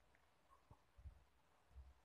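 Near silence, with a couple of faint clicks of a metal spoon stirring thick white sauce in a ceramic bowl.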